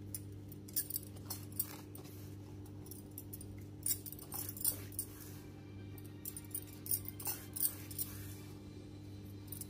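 Scattered faint clinks and taps of a spoon against a steel bowl as crushed peanut powder is added to soaked sabudana, over a steady low hum.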